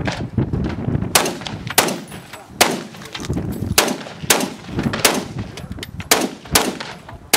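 Scoped AR-style rifle fired in a string of about nine single shots, unevenly spaced about half a second to a second apart.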